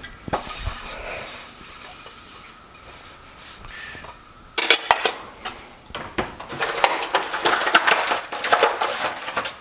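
A cloth rubbing a nonstick frying pan dry. After about four and a half seconds comes a louder, busy run of clicks and clatter as kitchenware and a clear plastic egg carton are handled.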